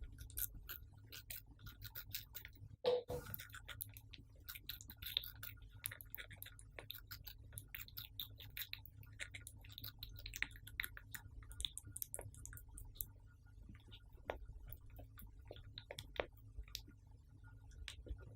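Hamster nibbling watermelon, with a quick, irregular run of tiny wet crunches and clicks over a low steady hum. There is one louder knock about three seconds in.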